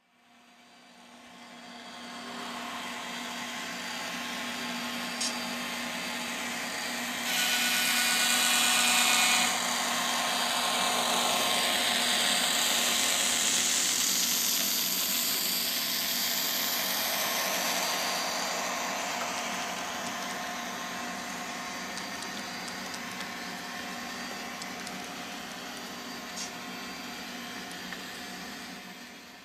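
N scale model diesel locomotives running with DCC sound decoders. Their tiny onboard speakers play diesel engine sound with a steady low hum, and it gets louder and hissier about a quarter of the way in. The sound fades in at the start and fades out at the end.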